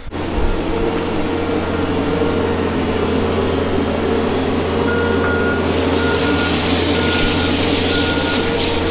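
Skid-steer loader's engine running steadily as it scrapes manure along the barn alley with a blade. About five seconds in, its reversing alarm starts beeping about once a second as it backs away.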